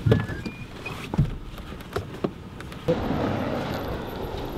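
Scattered knocks, clicks and rustles as a man climbs out of a pickup truck. About three seconds in they give way to a steady outdoor hiss.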